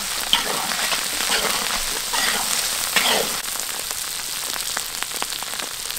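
Shallots and garlic frying in hot oil with curry paste in a large wok, a steady sizzle and crackle. A metal spatula stirs through them a few times in the first half, then the frying goes on alone, a little quieter.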